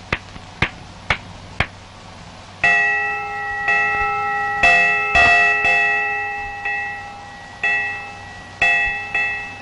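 Four sharp ticks about half a second apart, then, from about three seconds in, bells or chimes struck one after another as part of an early cartoon score. Each stroke rings on and fades under the next.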